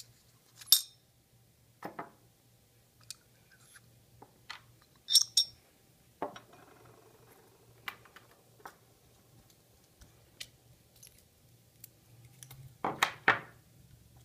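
Small steel parts of a can seamer roll assembly (tapered roller bearing, washers, spacers) clinking together and being set down on a wooden table as it is taken apart by hand. Scattered sharp clicks, loudest about a second in, around five seconds and near the end, with a brief scrape a little past six seconds.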